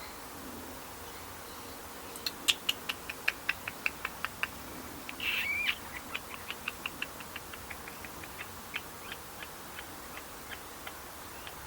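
A parrot making a long run of short, sharp clicking notes, about three a second, slowly fading and spacing out, broken by one short squawk about five seconds in.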